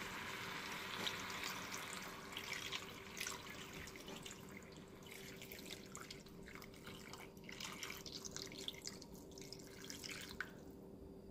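Water poured in a stream from a jug into a hot frying pan of chicken pieces, a steady splashing pour with crackling and bubbling where it meets the hot oil.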